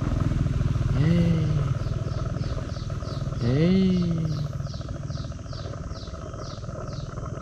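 A steady low engine rumble with a fine rapid rattle. Twice, about a second in and again past three seconds, a short voice-like sound rises in pitch and then holds. From the middle on, a high chirp repeats about three times a second.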